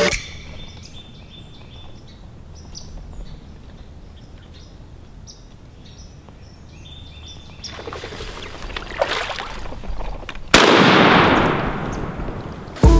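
Birds chirping, then a rushing noise builds. About ten and a half seconds in comes a single loud shotgun blast, which dies away over about two seconds.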